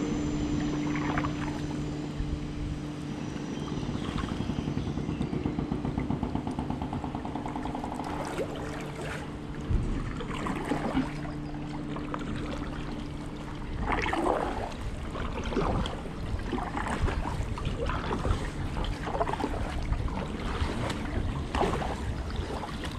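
A boat's engine humming steadily for about the first fourteen seconds, then stops; after that, kayak paddle strokes splash in the water about once a second.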